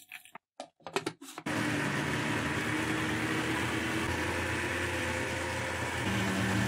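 A few brief clicks and knocks, then about a second and a half in an electric blender starts and runs steadily, grinding soaked moong dal with a little water into a fine paste.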